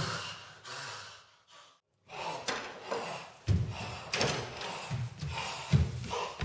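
A person's heavy gasping breaths and grunts, with a few low thuds. The sound breaks off for a moment about two seconds in, then resumes as irregular rasping breaths.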